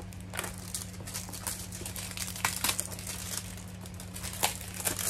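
Thin plastic wrap crinkling and crackling irregularly as it is peeled off a cardboard box by hand, with the loudest crackles about two and a half seconds in and near the end.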